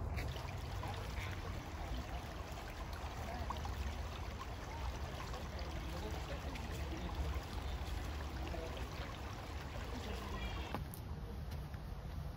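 Small woodland creek flowing, a steady trickling rush of water spilling past a fallen log and debris; the water sound drops away near the end.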